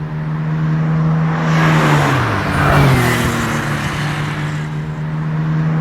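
Car sound effect: a steady engine note that drops in pitch about two seconds in, as a rush of noise swells and fades, like a car driving past.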